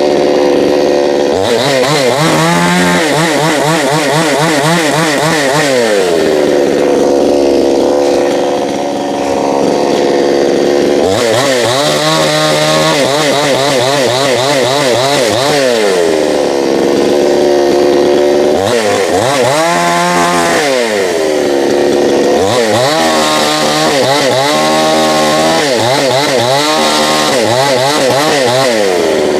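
Petrol chainsaw revved to full throttle four times and let back down to idle in between, its pitch wavering while at high revs as the chain works through wood.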